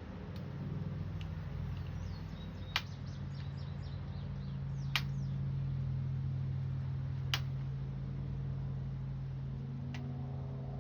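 Four sharp clicks, spaced about two and a half seconds apart, from work on a window screen frame, over a steady low hum. Faint bird chirps come in about two to four seconds in.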